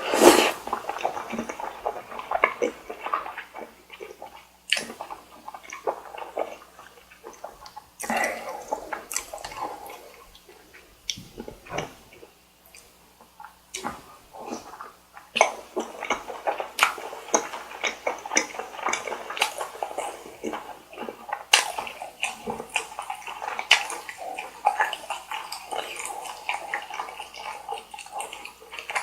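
Close-miked eating: wet, irregular chewing and mouth sounds from carbonara buldak noodles and chewy bar rice cake, with a quieter lull about halfway through.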